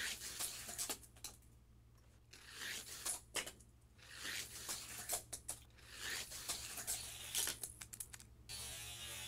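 Hot Wheels Angry Birds Red Bird toy car running on orange plastic track, a whirring rattle with sharp clicks that swells and fades several times as it goes around the layout. A faint steady hum lies underneath.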